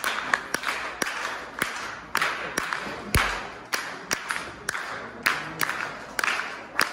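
One person clapping a steady beat, about two sharp claps a second, each ringing briefly in the hall.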